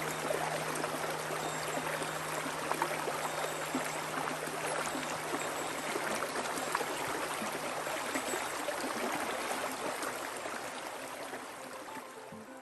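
Mountain stream water rushing over rocks in a steady, even wash that fades down near the end.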